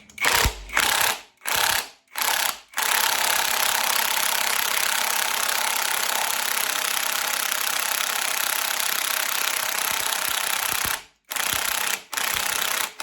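Impact wrench hammering on a wheel puller's centre bolt to draw a stubborn harmonic balancer off the crankshaft: a few short bursts, then one long continuous run of about eight seconds, then two more short bursts near the end.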